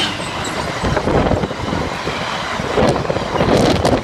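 A freight train's wagons passing at speed close by: a loud rushing rumble, with wheels clattering on the track in a few sharp knocks.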